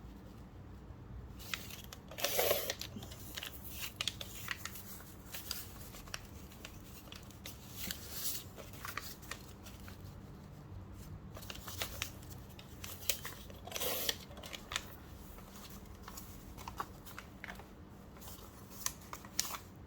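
Sheets of paper being handled, shuffled and folded: scattered light rustles and small clicks, with two longer, louder rustles, one about two seconds in and one about fourteen seconds in.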